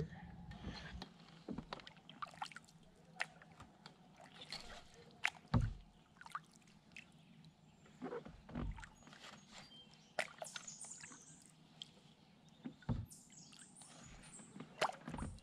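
Faint handling sounds of a kayak and spinning tackle: scattered light clicks and knocks, with a few dull thumps on the hull and a little water slosh.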